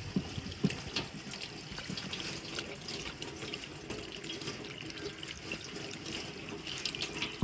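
Water running steadily from a tap and splashing, with many small clicks and splashes throughout.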